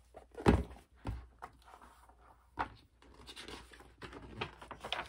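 A picture book being handled and its pages turned: a sharp thump about half a second in, two more knocks, then soft paper rustling and small clicks.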